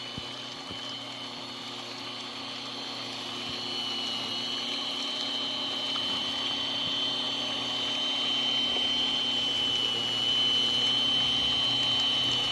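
Ballast regulator on a small hobby railroad, running steadily along the track with a high whine over a whirring hiss. It grows gradually louder as it comes up the grade.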